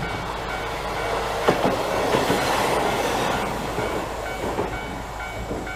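A Hankai Electric Tramway tram passes over a level crossing close by. Its wheels click over the rail joints, the sound swells to its loudest in the middle and then fades. The crossing's warning bell rings in a steady repeating pattern, heard most plainly at the start and again near the end.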